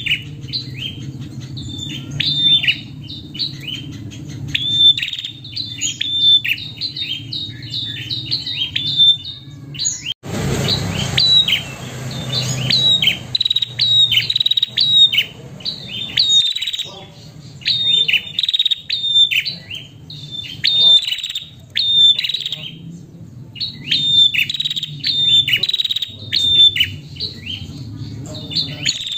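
Female prenjak calling in quick runs of short, sharp, high chirps, over a steady low background hum. The calling breaks off about ten seconds in, where a few seconds of hissy noise take over, then resumes.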